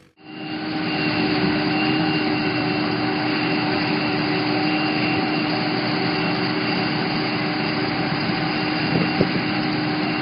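Steady running drone of an engine or motor, holding a constant pitch throughout.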